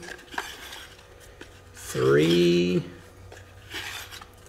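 Faint clicks and rubbing as hands turn the recoil starter pulley inside its cast housing to preload the recoil spring. A short voiced sound from the man comes about two seconds in.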